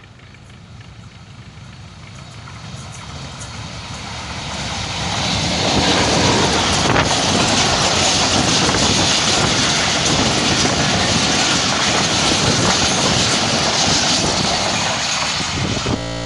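Pakistan Railways Khyber Mail passenger coaches passing close by on the next track, their wheels running on the rails. The noise grows over the first five seconds or so into a loud, steady rush, with a single sharp click about seven seconds in.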